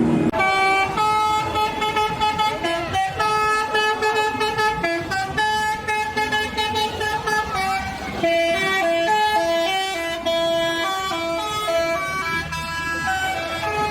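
Bus 'telolet basuri' musical air horn playing a quick tune, several horn tones sounding together and stepping from note to note.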